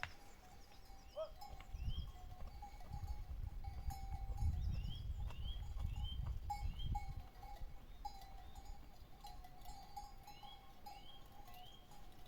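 Livestock bells clinking steadily with small irregular jingles, under a bird's short rising chirps repeated about twice a second. A low rumble comes in about two seconds in and fades out around seven seconds in.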